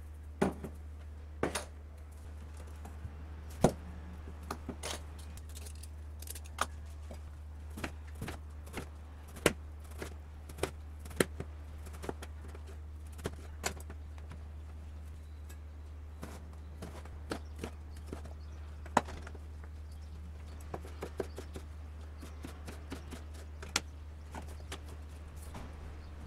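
Kitchen knife slicing peeled eggplant on a plastic cutting board: irregular sharp knocks of the blade striking the board, over a steady low hum.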